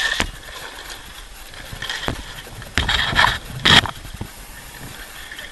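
Sailcloth and lines being handled at a sailboat's bow: rustling and scraping, with a loud rough crackling burst about three seconds in and another just before four seconds, over a steady hiss of wind and water.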